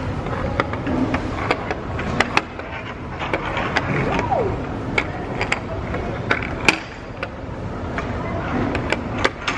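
A disc-shaped puck being slid through the grooved channels of a wall-mounted maze panel, with a running scrape and irregular sharp clicks as it knocks against the channel edges.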